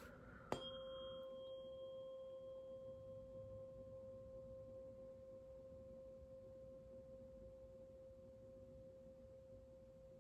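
A tuning fork is struck once, about half a second in, and rings with a single clear steady tone that slowly fades.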